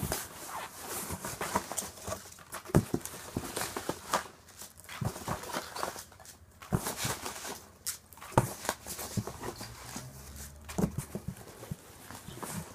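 Hands rummaging through a cardboard shipping box packed with foam packing peanuts and paper: continuous irregular rustling and crinkling, broken by scattered sharp clicks and knocks.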